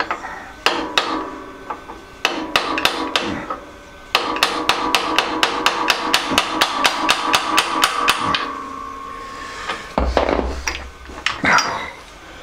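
Hammer blows on the worm shaft of a Harbor Freight horizontal metal bandsaw's gearbox, knocking the stuck shaft and its pressed-on bearings out of the housing. Metal rings with each blow: a few separate blows at first, then a fast run of about five a second for some four seconds, then a few heavier knocks near the end.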